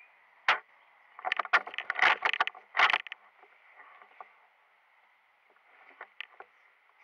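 Footsteps and movement through dry leaf litter and twigs: one sharp crack, then a dense, irregular run of loud crunches and snaps, and a few lighter ones near the end.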